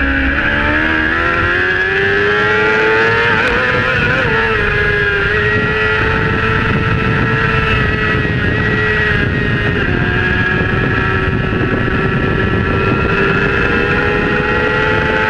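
Honda 600 cc supersport race bike's inline-four engine, heard onboard at high revs. Its pitch climbs over the first few seconds under acceleration, then holds high and nearly steady, with wind noise rushing over the microphone.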